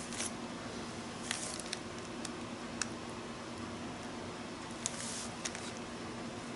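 Light taps and short scratches of a paint marker's tip dabbing dots onto a paper journal page, scattered irregularly, with a brief soft brushing hiss about five seconds in, over a steady low hum.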